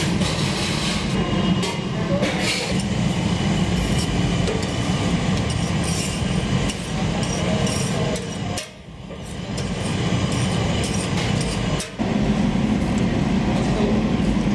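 The steady roar of commercial kitchen gas burners under an iron griddle, with a metal spatula clinking and scraping on the griddle as flatbreads are flipped. The roar drops away briefly twice in the second half.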